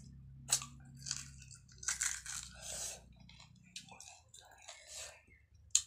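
Close-up eating sounds: chewing and crunching food, with wet mouth clicks coming in irregular bursts. A sharp click near the end is the loudest sound.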